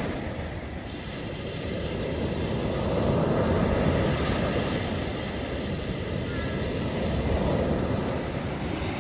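Sea surf washing on a beach, with wind rumbling on the microphone. The rumble swells and eases about every four seconds.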